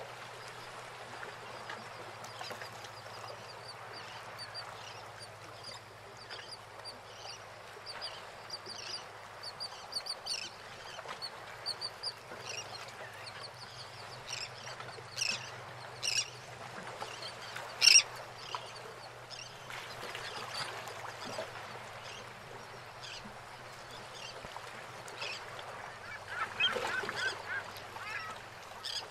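Harbour water lapping around moored fishing boats, with birds calling over it. High twittering chirps come first, then a few loud sharp calls around the middle, and a busier burst of calls near the end.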